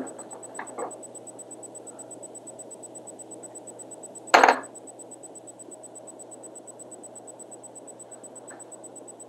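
Quiet handling at a fly-tying vise over a faint steady high whine and low hum, broken by one short loud knock about four and a half seconds in.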